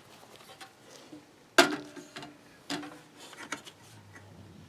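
A few sharp clicks and knocks as parts are handled inside a desktop computer case: one loud click about a third of the way in, a second about a second later, then a few lighter ticks.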